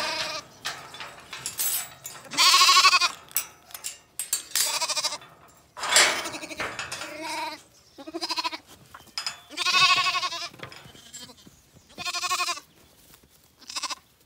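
Zwartbles lambs bleating over and over, about nine calls, each half a second to a second long, some of them overlapping.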